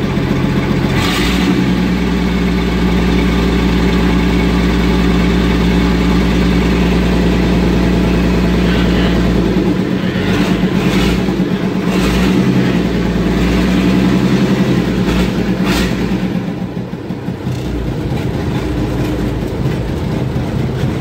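Scania 111's six-cylinder diesel engine running steadily, heard from inside the cab. A few short, sharp knocks come in the second half.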